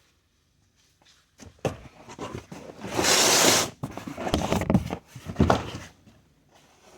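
Cardboard packaging being handled and opened: clicks, knocks and rustling, with a loud harsh burst about three seconds in, such as tape or cardboard being torn.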